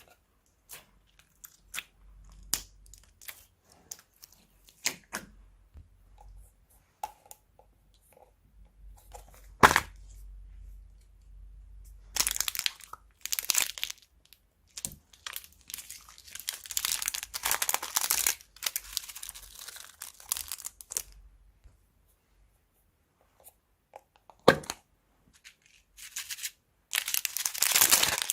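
Crunchy slime being worked by hand, giving scattered pops and clicks, one sharp snap about ten seconds in, and several runs of dense crackling a few seconds long as it is squeezed and stretched.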